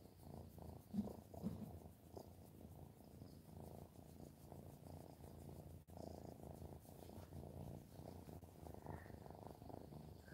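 Domestic cat purring faintly and steadily while being stroked.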